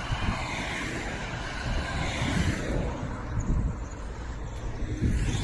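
A car passing close by on the road, its tyre and engine noise rising and fading about two seconds in, over low knocks and rumble from the phone being carried while running.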